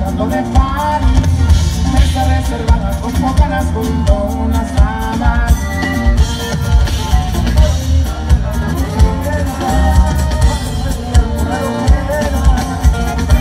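Live band with button accordion and drum kit playing a corrido, the drums keeping a steady beat under the accordion and a singing voice.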